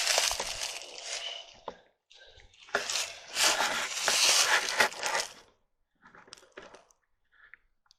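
Rustling, crunching noise in two bursts, the louder one from about three to five seconds in, followed by a few faint ticks.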